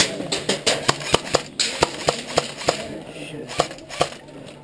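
Airsoft guns firing: sharp, irregular cracks and clicks, several a second at first and spacing out towards the end.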